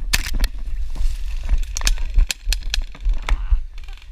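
A quick run of sharp, irregular clicks and knocks over a heavy low rumble, the sound of rapid movement during an airsoft game.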